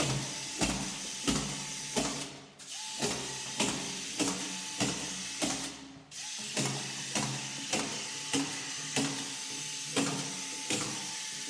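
Cordless drywall screw gun with an autofeed screw magazine driving screws into gypsum board, one about every half second, with a sharp click each time. Twice the motor briefly stops, about two and six seconds in.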